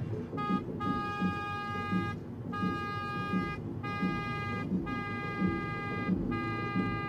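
A car horn honking six times in a row, a short toot followed by five blasts of about a second each on one steady pitch, over a low rumble.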